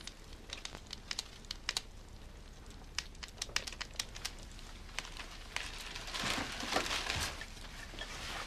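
Faint scattered clicks and crinkling rustles, swelling into a louder rustle about six seconds in.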